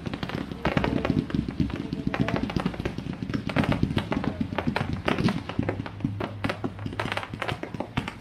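Crackling fireworks: a dense, irregular patter of small sharp pops from crackling stars going off overhead, over a low steady rumble.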